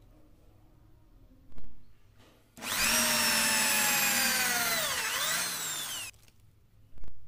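Electric drill running for about three and a half seconds as the bit bores into a wooden dowel. Its whine slowly sinks in pitch as the bit loads up, dips sharply about five seconds in, then picks back up before it stops. A sharp knock comes before the drilling and another near the end.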